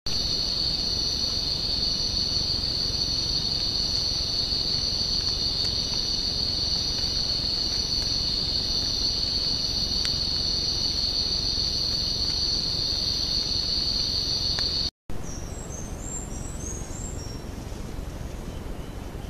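Steady, high-pitched chorus of night insects, unbroken and unchanging, that stops abruptly about fifteen seconds in. After that only a quieter background hiss remains, with faint scattered high chirps.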